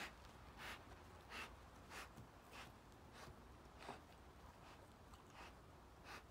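A black big cat breathing in short, faint puffs, about one every two-thirds of a second, as it sniffs at the floor.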